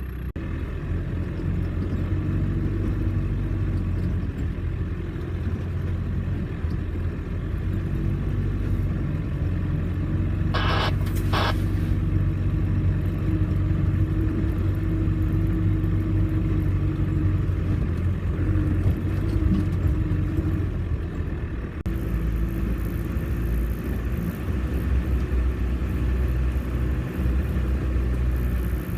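Off-road vehicle engine running steadily with a low rumble. Two short high-pitched squeaks come near the middle. About two-thirds through, the sound shifts abruptly to a heavier rumble with added hiss.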